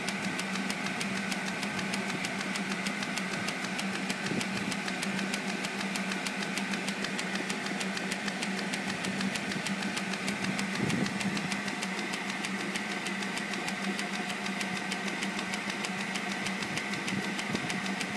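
Historic 9 hp circular saw rig running steadily without cutting, its drive giving a constant hum under a rapid, even ticking.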